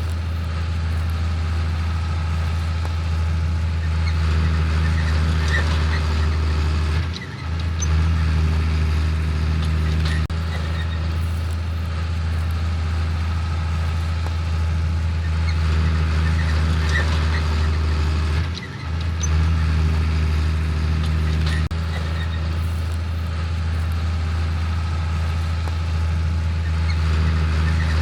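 Diesel engine of heavy harvest machinery running steadily under load, with two short dips in level, about seven seconds in and again near nineteen seconds.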